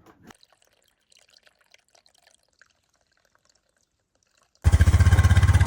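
Faint scattered ticks, then about four and a half seconds in, a loud engine running with a fast, even pulse cuts in suddenly and holds steady.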